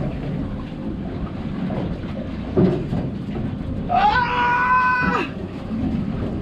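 Steady wind and water noise on an open boat. About four seconds in comes a single drawn-out wailing cry that rises at the start and holds for about a second.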